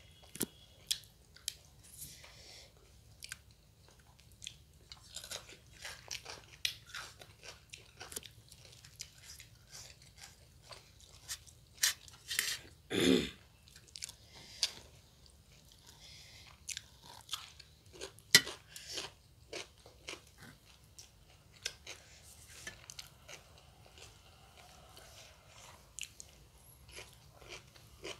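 Close-miked eating: two people chewing and biting sattu puri with small crunches and crackles, fingers tearing the bread over steel plates. A louder, longer noise about halfway through and a sharp click a few seconds later stand out.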